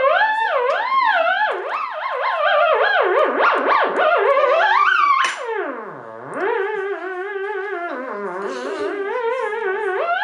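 Theremin played by hands waving near its antennas: one continuous tone that swoops and wavers up and down in pitch, sliding down to a low dip about six seconds in, then wobbling over a narrower range toward the end.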